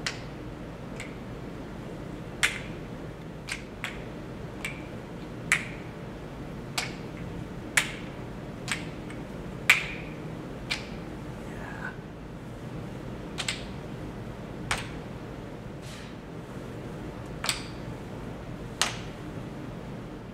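Wooden kendama ball clacking against the ken's cups and spike: sharp single clicks at irregular spacing, roughly one every second or so, over a steady low hum.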